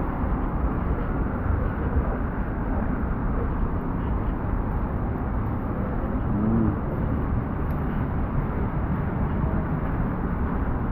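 Steady city street noise, mostly low rumble of passing road traffic. A faint voice is heard briefly about six and a half seconds in.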